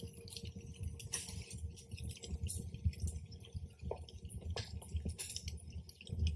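Faint crackling campfire ambience: scattered small irregular clicks over a low, uneven rumble.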